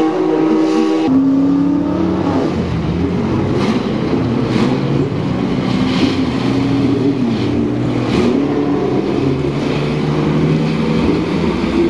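Porsche 917's flat-twelve engine running at low revs as the car rolls slowly, its pitch rising and falling a little. In the first second, before a sudden cut, a different racing car's engine is heard.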